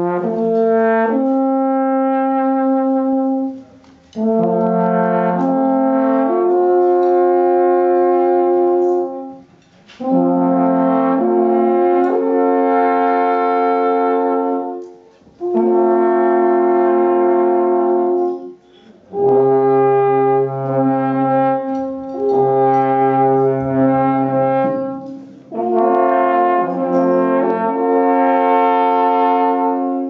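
Alpenhorn trio playing long held notes together in harmony, in phrases of a few seconds each with short breaks between them.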